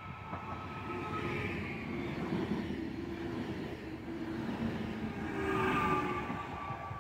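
Electric multiple-unit passenger train passing close by a platform: rail and wheel rumble under a whine of several steady tones. It is loudest as the rear car goes by near the end, when the whine drops slightly in pitch.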